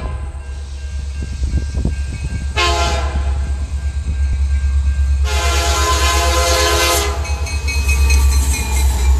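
Diesel freight locomotive's multi-note air horn sounding a short blast about two and a half seconds in, then a long blast of nearly two seconds, the train's signal for the road grade crossing. A steady low rumble runs underneath.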